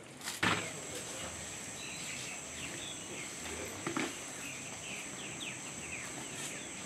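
Rural outdoor ambience: insects keep up a steady high buzz while birds give many short falling chirps. There is a brief loud knock just after the start and a softer thump about four seconds in.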